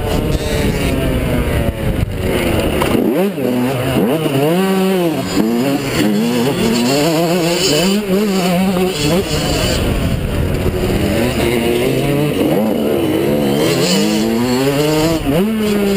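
Yamaha YZ125 two-stroke single-cylinder motocross engine revving hard, its pitch rising and falling many times as the rider opens and closes the throttle through the gears, heard from the rider's helmet.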